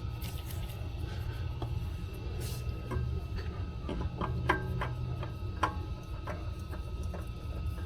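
Scattered light clicks and taps of tools and parts being handled during skid steer oil filter work, over a steady low rumble.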